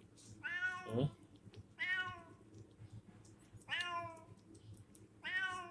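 A domestic cat meowing four times, one short call about every second and a half.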